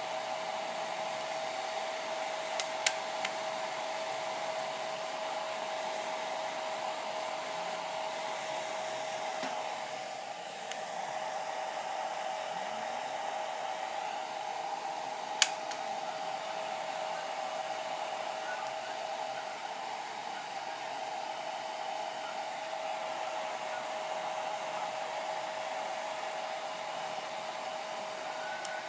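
Hand-held hair dryer running steadily: an even rushing hiss with a constant motor whine. A few sharp clicks come about three seconds in, and one louder click about halfway through.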